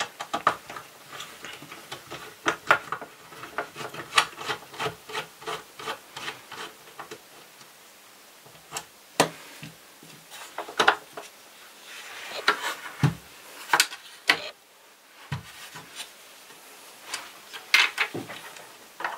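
Screwdriver and hands working the plastic chassis of a Vorwerk VR100 robot vacuum: a quick run of clicks and scrapes over the first several seconds, then scattered knocks and rubbing as plastic parts are shifted and the housing is handled.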